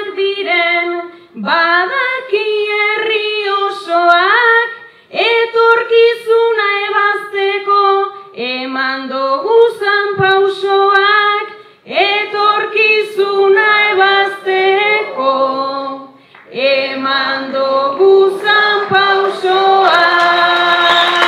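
A woman singing a Basque song unaccompanied, in phrases of a few seconds with short breaks between them, ending on a held note. Applause breaks in near the end.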